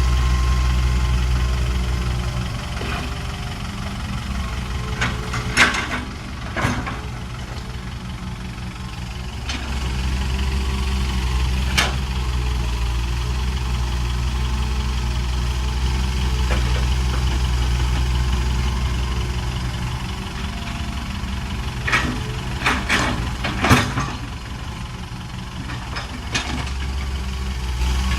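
Hitachi excavator's diesel engine running, its note rising and easing in turn as the machine works. Several sharp knocks come through it, in a cluster near the start, once in the middle and in a run toward the end.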